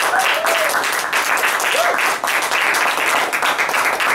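Audience applauding steadily, a dense even clatter of many hands, with a brief call from the crowd once or twice.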